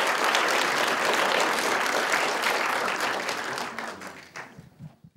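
Audience applauding, the clapping thinning out and fading away over the last second or two.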